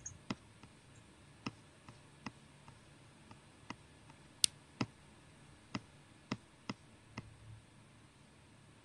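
About a dozen scattered single clicks of someone working a computer at its mouse and keys, irregularly spaced, with a sharper click about halfway through, heard faintly over a video-call microphone.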